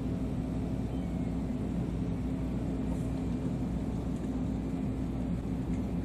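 Steady low engine drone holding one constant pitch, with no change in speed.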